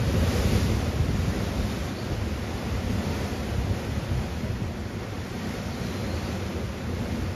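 Wind noise on the microphone over the wash of sea surf: a steady rushing noise with an uneven low rumble.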